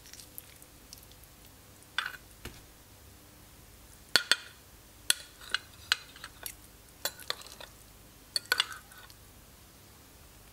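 Metal spoon and fork clinking and scraping against a ceramic bowl as food is scooped up, about a dozen short sharp clicks in small clusters.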